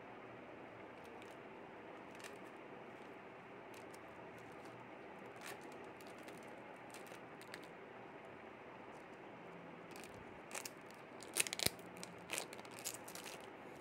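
Clear plastic packaging bag crinkling and crackling as it is handled, a few scattered crackles at first and then a dense run of louder ones in the last few seconds, over a steady hiss.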